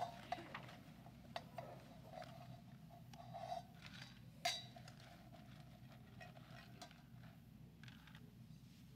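Light clinks of metal communion vessels, ciboria and their lids handled on the altar: a few sharp taps, the loudest about four and a half seconds in, each leaving a faint metallic ring.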